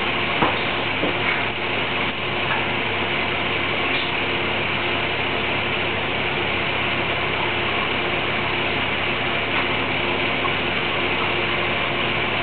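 Steady machine hum and hiss with faint steady tones, and a few light clicks in the first couple of seconds.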